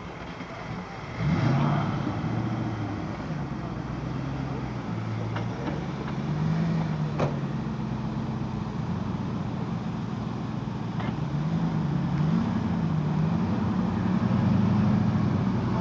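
Classic Range Rover's V8 engine working under load on a steep muddy climb. The revs pick up sharply about a second in, then rise and fall repeatedly as the throttle is worked.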